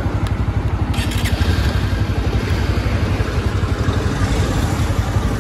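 Bajaj Pulsar NS125's single-cylinder engine idling in neutral, a steady, evenly pulsing low beat.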